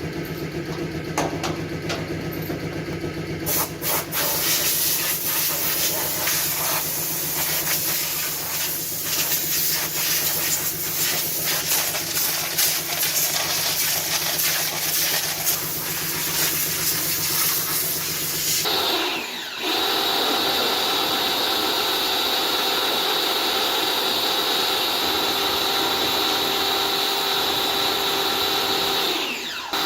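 Pressure washer jet hissing as it blasts dirt off a hedge cutter, over a steady low hum. About two-thirds of the way in the sound changes abruptly to a steadier machine whine with constant high tones.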